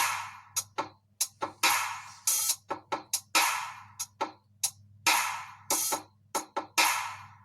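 Music with a drum-machine beat: short sharp hits mixed with longer hissing, cymbal-like hits that die away, over a steady low hum.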